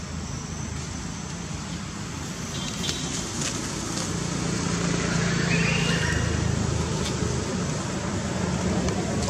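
A steady low engine hum, as of a motor vehicle, over a background hiss, growing louder about halfway through, with a few short high chirps.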